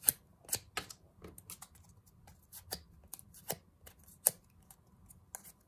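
Small piece of cardstock being curled around a plastic tool: irregular light clicks, crackles and scrapes as the card bends and rubs against the tool's edge, with a sharper tick just at the start and another a little past four seconds in.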